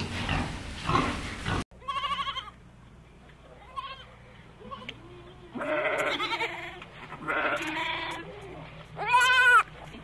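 A pig grunting in a rough run that cuts off abruptly, followed by Nubian goats bleating: a short wavering bleat, two longer bleats around the middle, and a loud one near the end.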